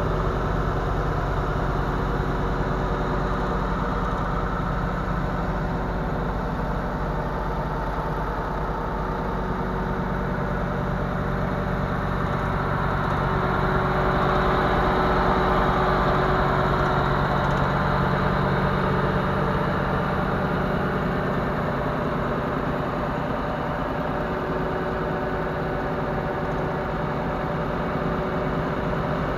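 Tractor engine running steadily, driving through its PTO shaft a Star 200 truck engine converted into an air compressor, its pistons chugging at an even fast beat. It grows a little louder for a few seconds midway.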